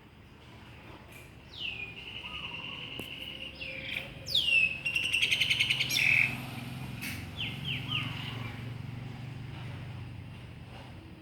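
A songbird singing: falling whistles that settle into held notes, then a loud rapid trill about four to six seconds in, and a few short notes after. A low hum runs underneath through the second half.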